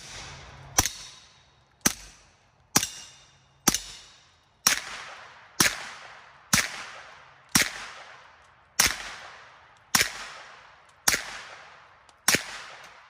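CZ Scorpion EVO 9mm fitted with a GSL Fatman suppressor firing about a dozen semi-automatic shots, roughly one a second, each sharp report trailing off in echo. Subsonic rounds come first, then standard-velocity rounds whose bullets give a sonic crack as they pass the speed of sound.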